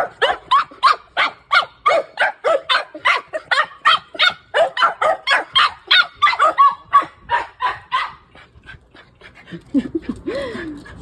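Several dogs barking and yelping in rapid succession, about four high-pitched barks a second: excited greeting barks at their owner's arrival. The barking thins out and turns faint about eight seconds in, with a short whine near the end.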